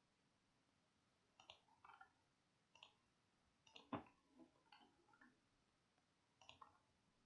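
Faint clicks of a computer mouse, in small clusters spread across a few seconds, the loudest about four seconds in, as vertex points are placed with the line tool.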